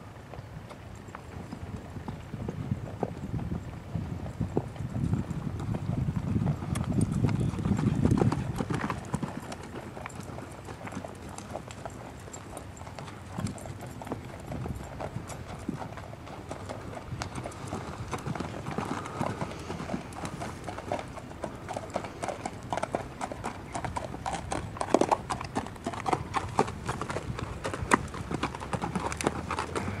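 Hoofbeats of a ridden buckskin gelding clip-clopping on a gravel and dirt road. The hoof strikes become sharper and more distinct in the last third as the horse passes close by.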